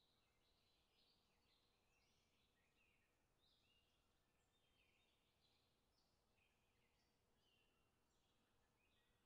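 Near silence, with faint high chirps scattered throughout.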